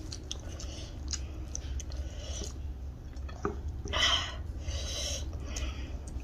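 Close-up eating sounds: chewing with small wet mouth clicks, and a short hissy sound about four seconds in. A low steady hum runs underneath.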